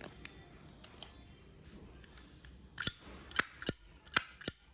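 Metal pocket lighter being handled: a few faint ticks, then five sharp metallic clicks in the second half, the snap of its lid and striking mechanism.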